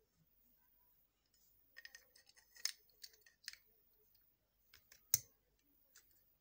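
Faint handling noise: small clicks and scratchy rustles as an LED bulb's driver circuit board and its wires are pushed down into the plastic bulb housing, with one sharper click about five seconds in.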